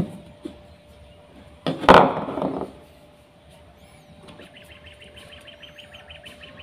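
Handling noise as a fishing pole is set down and handled on a table: a short thump at the start, then a louder clatter about two seconds in. For the last few seconds a small bird chirps rapidly in the background, over a steady hum.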